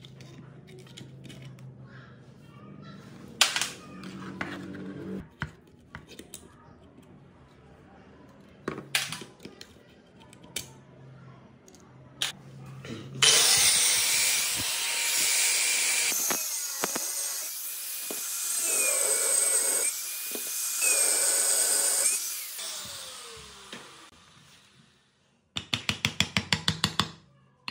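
Small metal clicks of tools working on the pump motor, then a handheld electric grinder runs for about ten seconds, its whine dipping and recovering as it bites. Near the end comes a quick, even run of sharp metal-on-metal hammer blows on a chisel against the motor housing.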